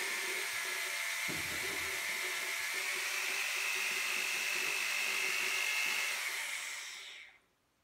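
Corded electric drill running steadily with a high whine as it bores a hole through a plastic container, with a brief low knock about a second in; the motor stops about seven seconds in.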